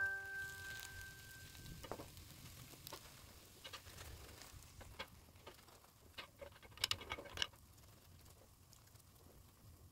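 Metal spoon pressing and patting grated potatoes flat in a nonstick frying pan: faint scattered taps and scrapes, with a quick cluster of clicks a little past halfway.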